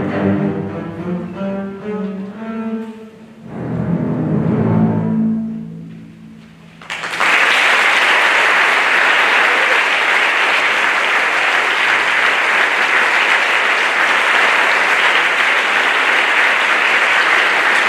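A double bass ensemble plays its closing notes and a final held chord that swells and then dies away. About seven seconds in, applause breaks out suddenly and carries on steadily.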